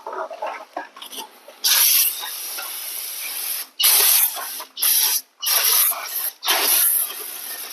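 Cleaner sprayed onto a motorcycle's dirty rear wheel area, hissing out in bursts: one of about two seconds, then four shorter squirts.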